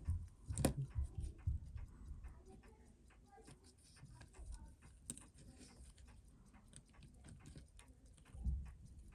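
Irregular small clicks and taps of watchmaker's tools on a watch movement, with dull low thumps near the start and again near the end.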